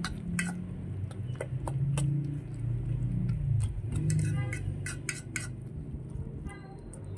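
A metal utensil stirring a wet, chunky mixture in a stainless steel bowl, with many quick clinks and scrapes against the bowl over a low background hum.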